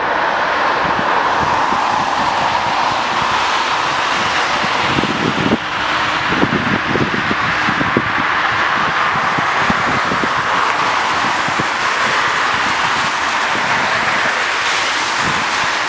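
Jet engines of an Air Berlin Airbus A320-family airliner running steadily at low power as it turns onto the runway, a level whine and rush. Gusts of wind buffet the microphone between about five and eight seconds in.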